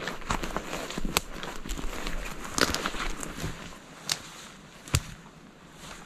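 Footsteps on a mossy forest floor, with dry twigs cracking underfoot. The steps are dense and close for about the first three seconds, then fade, with two sharp snaps near the end.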